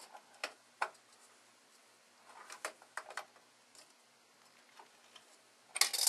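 Scattered light clicks and ticks as the tool supplied with a Noctua NH-D14 CPU cooler turns the cooler's mounting screw into its bracket, the screw starting to bite, with a louder cluster of clicks near the end.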